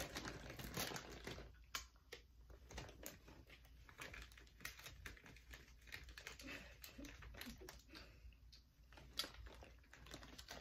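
Faint crinkling and rustling of plastic snack packaging being handled, with scattered small irregular clicks and crackles.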